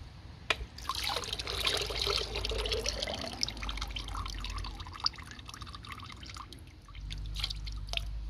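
Diesel fuel draining from a removed fuel filter into a drain pan: a click, then a steady pour for about two and a half seconds that thins to a trickle and scattered drips.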